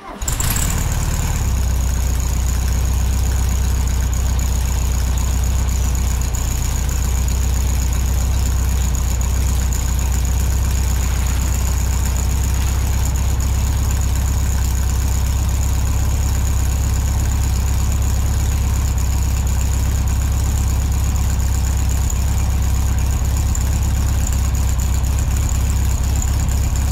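Electric piston air compressor running steadily: a loud, even low hum with a thin high whine over it that starts and cuts off abruptly.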